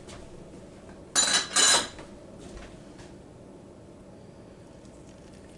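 A kitchen utensil knocking and scraping against a stainless steel pot: two quick clatters with a slight metallic ring, about a second in.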